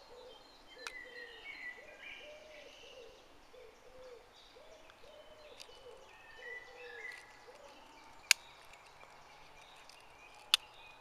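Birds calling in the background: a low hooting or cooing call repeated about eight times over the first six seconds, with higher chirps in between. Two sharp clicks stand out, about eight and ten and a half seconds in.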